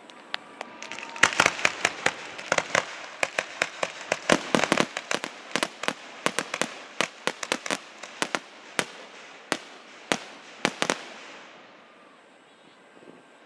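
Fireworks finale: a rapid, dense string of loud bangs with crackling between them, keeping up for about ten seconds before thinning out and stopping about eleven seconds in.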